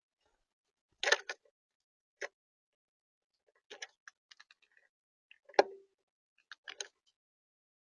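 Irregular sharp taps and clicks from birds pecking and scrabbling on a bird feeder, in about five short clusters, the loudest a little past the middle.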